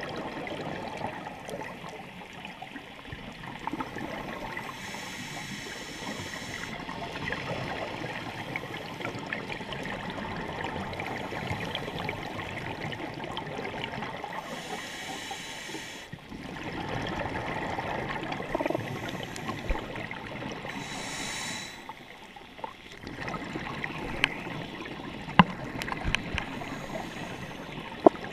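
Scuba regulator breathing heard underwater: bursts of exhaled bubbles burbling every several seconds over a steady muffled wash, with a few sharp clicks near the end.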